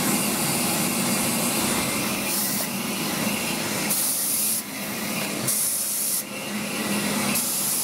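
Urie S15 steam locomotive No 506 standing in steam, hissing steadily from the cab, with four brief bursts of sharper, higher hiss about every one and a half to two seconds.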